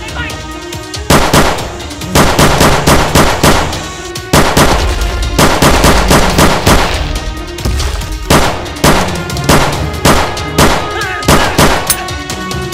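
Bursts of rapid gunfire, a few shots a second, in several volleys with short pauses between them.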